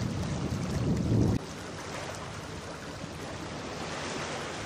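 Wind buffeting the microphone with a low rumble that cuts off suddenly about a second and a half in, then a steady hiss of wind and water.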